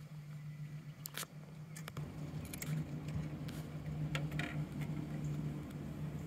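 Electric trolling motor humming steadily, growing louder about two seconds in, with scattered light clicks and rattles of gear handling.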